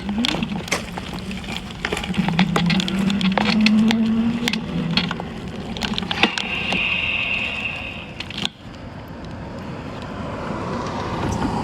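Clicks, knocks and rattles for most of the first eight seconds, with a high steady tone held for about two seconds near the end of that stretch. After an abrupt cut comes a car's steady running and road noise.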